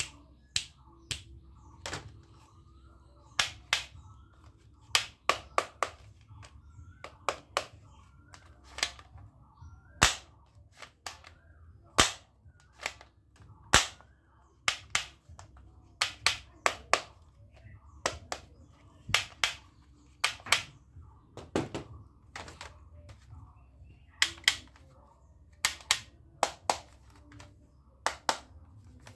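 Plastic toy guns clicking and knocking as they are handled and their triggers worked: sharp, short clicks, irregular, about one or two a second and often in quick pairs.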